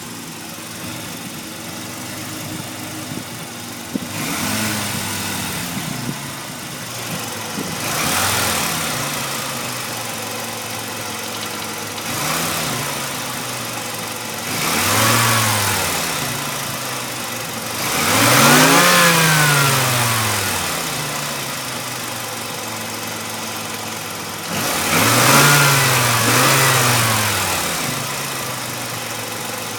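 Mazda RX-7 rotary engine idling warm and blipped up in revs several times, each rev rising and falling back to idle, the longest a little before halfway. Under the idle is a knock that the owner cannot place and hopes is a pulley. It appears only once the engine is warmed up.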